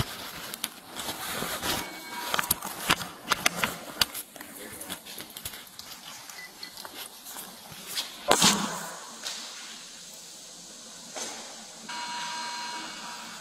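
Body-worn camera handling noise: clicks and rustling against the microphone as the wearer walks. A louder rustle comes about eight seconds in, then a steady hiss, with a brief tone near the end.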